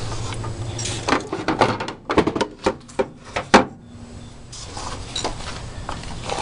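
Handling noise while working on a van's engine-computer bracket: a run of sharp clicks and knocks, the sharpest about three and a half seconds in, with rustling and a low hum around them.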